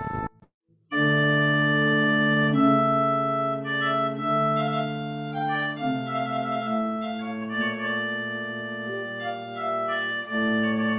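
Pipe organ playing slow, held chords that change every second or two. The sound breaks off for about half a second near the start, then a new chord comes in.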